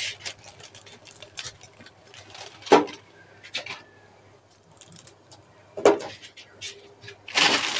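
Handling sounds of a packet of Maggi instant noodles: crinkly plastic wrapper rustling and a few sharp clicks and taps, the loudest about three seconds in, as the noodle block goes into an aluminium saucepan.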